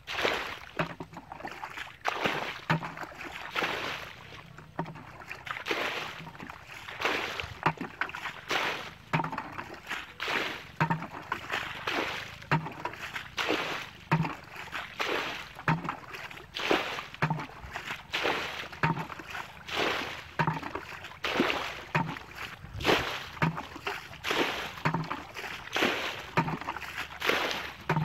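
Water sloshing and splashing in a steady rhythm as a plastic bucket scoops water from a shallow muddy pool and throws it out, about one scoop-and-throw every second and a half: the pool being bailed out by hand.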